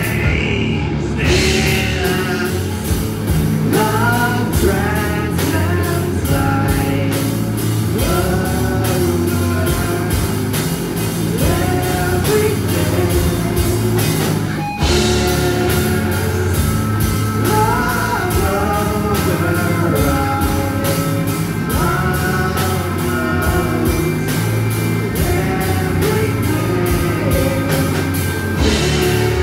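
Live rock band playing: electric guitar, bass guitar and drum kit, with a vocalist singing over them. The music drops out for a moment about halfway through, then carries on.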